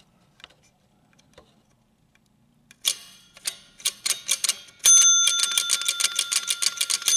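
Rapid metallic clicking of a 1966 Gottlieb Mayfair pinball machine's ratchet-and-pawl unit being cycled, starting about three seconds in and growing faster about five seconds in, when a steady high metallic ring joins it.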